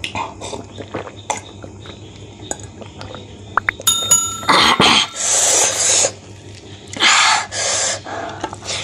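Close-miked eating sounds: wet chewing and hand-on-food clicks, with the clink of a glass water mug. About four seconds in, a short electronic chime with clicks, the sound effect of a subscribe-button animation; then two loud breathy hisses, one just over a second long and one about a second long near the end.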